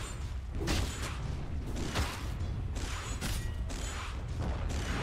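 Dota 2 gameplay sound effects: an irregular run of sharp hits and swishes over a steady low rumble.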